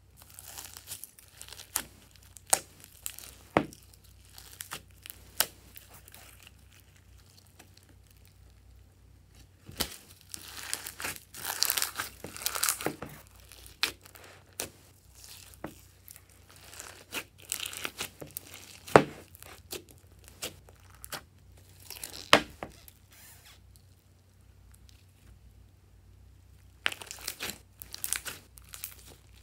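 Hands kneading and squeezing glossy pink slime mixed with foam beads, sequins and glitter: sticky crackles, squelches and sharp pops from the slime. They come in bunches with quiet gaps between, and the loudest pops fall a little past halfway.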